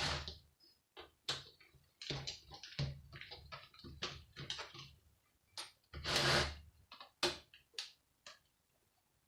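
A broken computer monitor's plastic and metal parts clicking, tapping and scraping as it is taken apart by hand. The clicks come irregularly, with a longer scrape about six seconds in.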